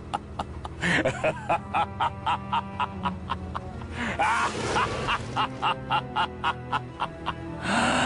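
Evil laugh sound effect: a long laugh in quick, even pulses, about four a second, over background music, with a louder burst near the end.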